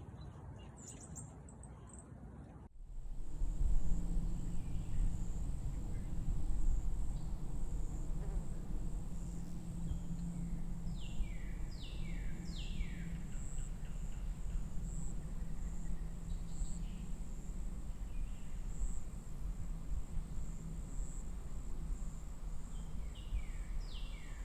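Steady low wind rumble on the microphone outdoors in the snow, with a faint steady high whine. A bird calls in short runs of three or four falling chirps, twice.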